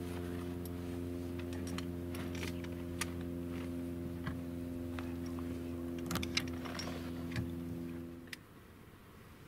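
Scattered light clicks and knocks of hunting gear being handled, over a steady low hum of several held tones that cuts off about eight seconds in.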